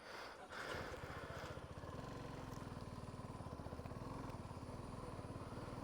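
A vehicle engine running with a rapid, even low pulse, faint and steady, coming in about half a second in.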